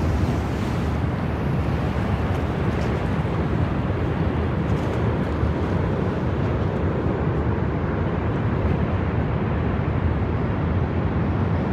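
Steady low rumble of outdoor background noise, heaviest in the bass, with no distinct events standing out.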